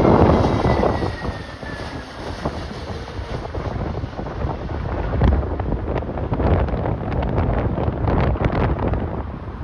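Strong gusting wind buffeting the microphone in uneven low rumbles and crackles. At the start a jet airliner's roar dies away with a slowly falling whine.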